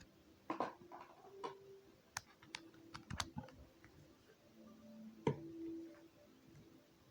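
A scatter of light, sharp clicks and taps in irregular quick succession, with a couple of brief faint low hums around the middle.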